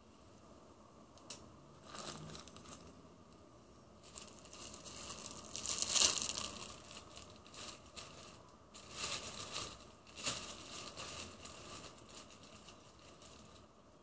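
Plastic bag crinkling and rustling in irregular bursts as a hand rummages inside it, loudest about halfway through.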